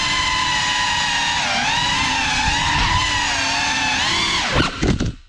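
GEPRC Cinelog 35 cinewhoop's brushless motors and ducted propellers whining, the pitch rising and falling with the throttle. Near the end come several quick dips in pitch and a few knocks, then the sound cuts off abruptly.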